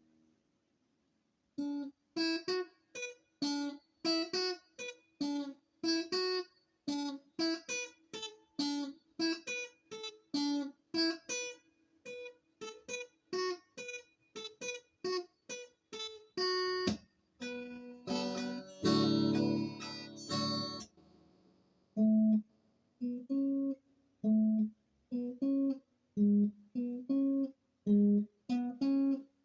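Acoustic guitar playing an instrumental passage, struck in a steady rhythm of about two notes or chords a second after a short silence at the start. About two-thirds of the way in it breaks into a denser, ringing passage, then returns to the rhythmic pattern on lower notes.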